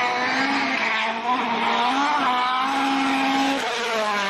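Rally car engine at full throttle, its pitch climbing and dropping several times as the car shifts gears and lifts, with some tyre noise on the road surface.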